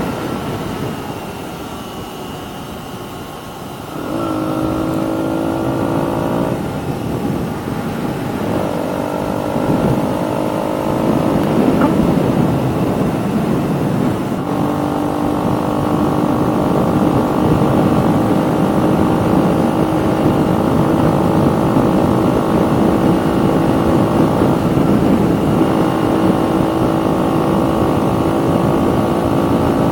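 KTM Duke 125's single-cylinder four-stroke engine running through an aftermarket full exhaust system while riding. The note is quieter for the first few seconds, picks up about four seconds in and changes pitch several times, then holds a steady cruising note from about halfway through. A low rush of wind noise runs underneath.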